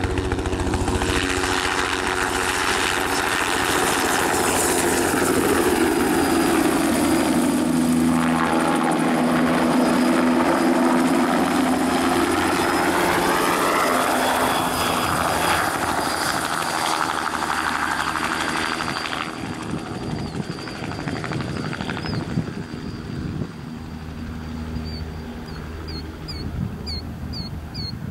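Bell 206 JetRanger helicopter, with its two-bladed rotor and single turbine engine, flying low past: the rotor and turbine noise is loudest as it passes close by, with a sweeping change in tone, and fades after about two-thirds of the way through as it flies off. Near the end a run of short high chirps repeats several times.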